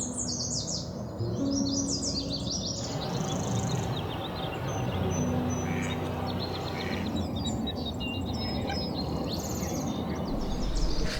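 Several wild birds singing and calling together, a dense mix of quick high chirps and trills that changes character about three seconds in, with a low steady hum underneath.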